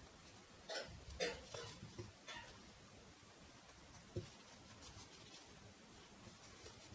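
Faint scratchy rustling of chunky yarn and a tapestry needle being drawn through crochet stitches while a seam is sewn, in a few short strokes about a second in and again near two and a half seconds, then a soft knock a little after four seconds.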